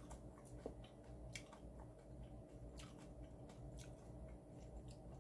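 Faint chewing of freshly made cabbage geotjeori: soft, irregular little crunches and mouth clicks over a low steady room hum.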